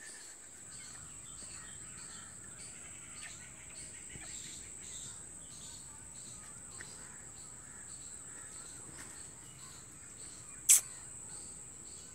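Outdoor ambience: a steady high-pitched insect drone with birds calling over and over. A single sharp click stands out about ten and a half seconds in.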